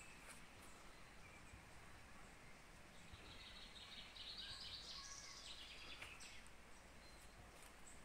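A small bird calls quietly in the woods with a rapid run of high twittering notes, starting about three seconds in and lasting a few seconds.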